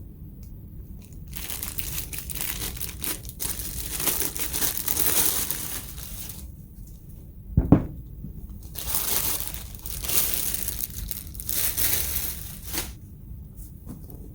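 Packaging crinkling and tearing as a new tool is unwrapped, in two long stretches, with a single thump between them.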